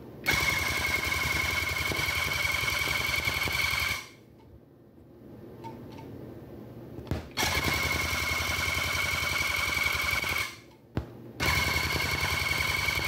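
Tufting gun running in three bursts of about four, three and two seconds, each a fast rhythmic needle stroke with a steady high whine, as it fills a petal with yarn row by row; it stops between rows.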